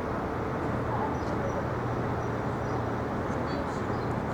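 Steady city street noise: a constant traffic rumble and hum, with a few faint high chirps.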